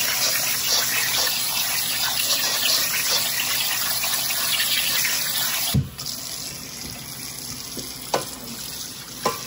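Cold water from a kitchen sink sprayer running over cooked pasta and broccoli in a stainless steel colander, rinsing them to stop the cooking. About six seconds in it changes suddenly to a quieter stream from the faucet, with a couple of knocks of a wooden spoon against the colander.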